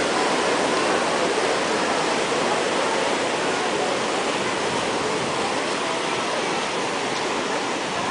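Paddle steamer's paddle wheels churning the lake water as the boat pulls away from the pier: a steady rushing of water, easing slightly toward the end.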